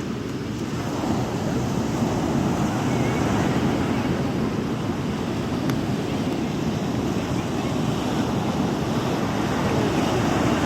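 Sea waves washing onto a beach, a steady rush of surf with no pauses between breakers, with wind buffeting the microphone.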